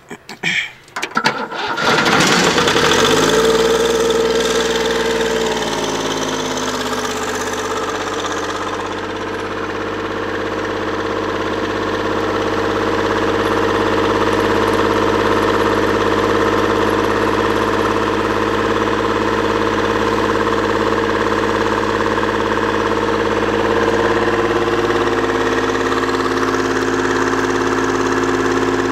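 Yanmar YB1200SS backhoe's diesel engine cranking and catching about two seconds in on ether starting fluid sprayed into the air intake. It runs fast at first, slows over the next few seconds and settles into a steady idle. The owner puts the hard starting down to a blown head gasket.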